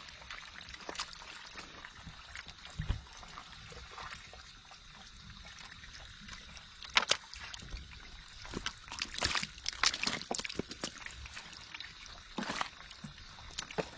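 Shallow water trickling, with irregular splashes and sloshes that come more often and louder in the second half.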